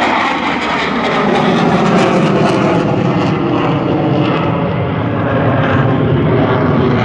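JF-17 Thunder fighter's single Klimov RD-93 turbofan, a loud, steady jet roar as the aircraft flies its display; the sharp upper hiss dulls gradually over the few seconds.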